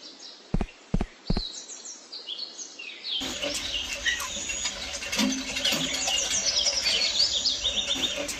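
Birds chirping: quick runs of short falling high chirps, thinner for the first three seconds and then fuller and busier. A few dull low thumps come in the first second and a half.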